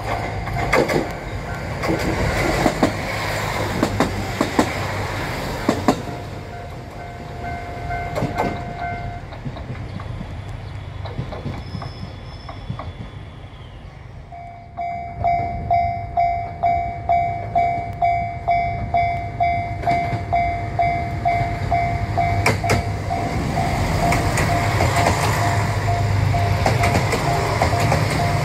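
A JR train running through with its wheels clicking over rail joints, while a level crossing warning bell sounds. About halfway through, a crossing bell starts ringing in an even beat of about two strokes a second, and a train's rumble builds under it near the end.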